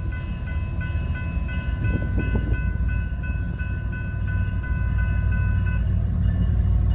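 Railroad grade-crossing warning bell ringing rapidly, about three strokes a second, stopping about six seconds in, over the low rumble of a train that grows steadily louder.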